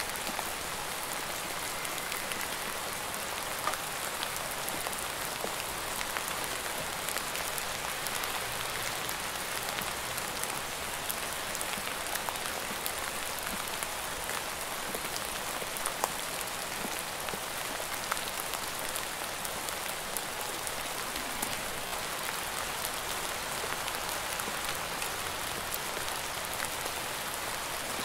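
Steady rain falling, an even hiss with many individual drops ticking close by and now and then a louder single drop.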